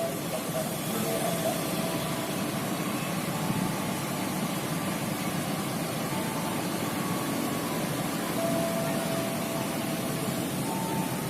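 Steady running of idling bus engines, with a few faint held tones about halfway through and again near the end.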